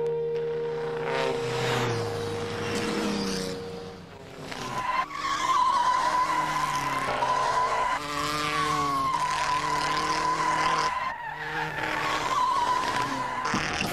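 Film music with held notes fades out over the first few seconds, and then a vintage racing car's engine runs hard at speed, with a steady high-pitched whine over it and pitch swinging up and down briefly in the middle as the engine is revved.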